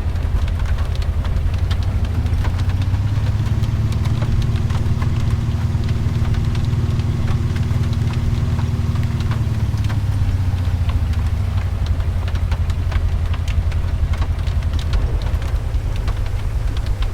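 Car engine running with a steady low rumble, and scattered sharp ticks like rain striking the vehicle. A steadier engine note comes in about two seconds in and fades out around ten seconds.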